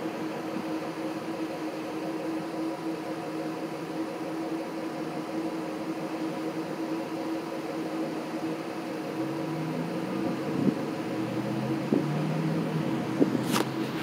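Car engine idling with a steady hum, heard close to the tailpipe. A brief click near the end.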